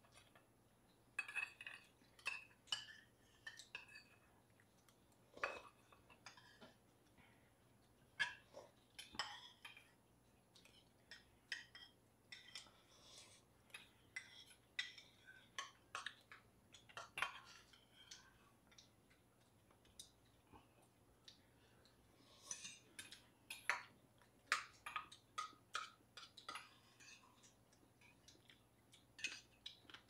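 Metal spoons and chopsticks clinking and scraping against small stainless-steel bowls and dishes while eating: faint, irregular light taps, some with a short metallic ring.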